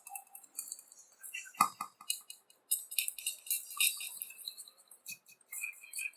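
A spoon clinking and scraping against a small bowl while stirring thick honey and ground black pepper together: irregular light taps, with one louder knock about a second and a half in.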